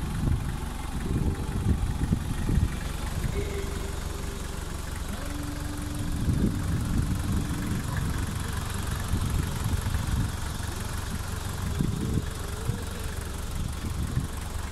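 Vehicle engine idling: a low, uneven rumble at a steady level, with a faint steady hum briefly about four seconds in and again from about five to eight seconds.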